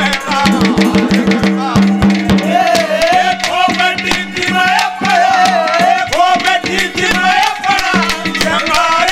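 Haryanvi ragni accompaniment: dholak drum strokes over a harmonium's held notes. A wavering melody line comes in about two and a half seconds in.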